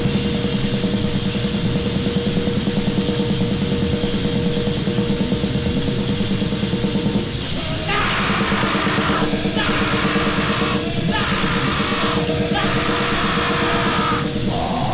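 Distorted grindcore music: dense, heavily distorted guitar and drums with a rapid pulse. Harsh yelled vocals come in about halfway through in a few short shouts.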